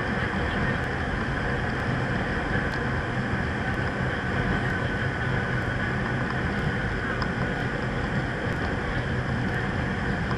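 Kobe Electric Railway 3000-series electric train running, heard from inside the front car: a steady rumble of wheels and running gear with a faint high whine underneath.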